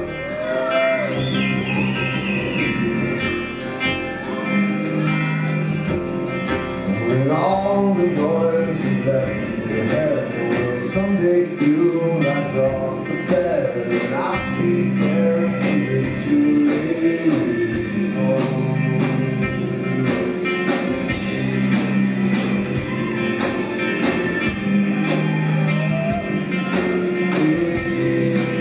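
Live band playing an instrumental passage: a steady bass line under drums and cymbals, with sliding, bending melodic notes over the top.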